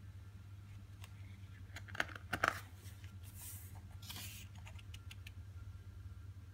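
A page of a glossy photobook being turned by hand: a few sharp paper snaps and crackles about two seconds in, then a soft swish of paper as the page is laid flat. A steady low hum lies underneath.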